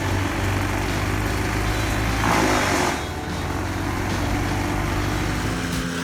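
Wood chipper's engine running steadily, with a short louder rushing noise about two seconds in.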